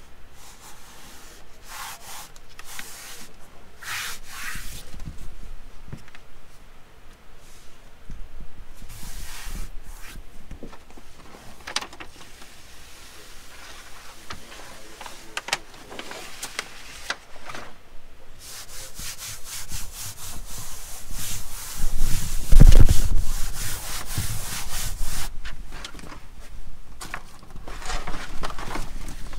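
SeaDek EVA foam deck pads and their paper backing rubbing, rustling and scraping as they are laid out and pressed into place on a fiberglass boat deck. A louder stretch of low rumbling noise comes about two-thirds of the way through.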